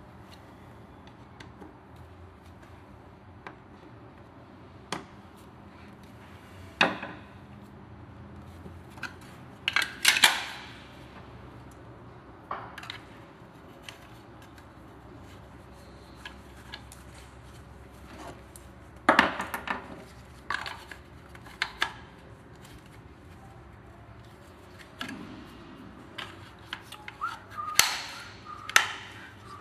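Parts of an electric wet sander knocking and clicking against each other and the bench as they are handled and fitted by hand: a few sharp knocks and clatters at irregular intervals, loudest about ten seconds in and near the end.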